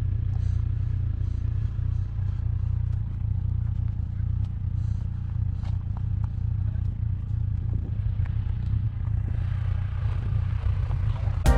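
Tesla Model 3 Performance driving slowly over a rough offroad trail, with no engine note: a steady low rumble with scattered clicks and clatters from the tyres on stones and dirt. Music comes in right at the end.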